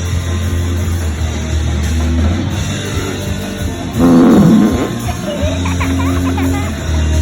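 Rock music with sustained low bass notes and a loud, pitch-bending burst about four seconds in.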